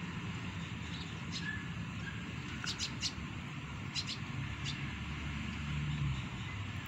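Short, high bird chirps, some in quick pairs and triples, over a steady outdoor hiss. A low hum swells briefly about five to six seconds in.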